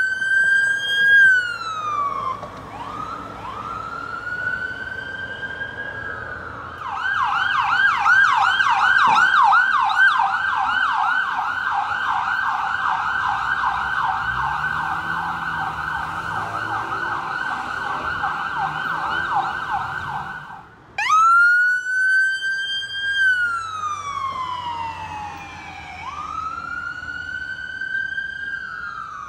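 Ambulance sirens: a slow rising and falling wail, then a fast yelp for about fourteen seconds, then the slow wail again near the end.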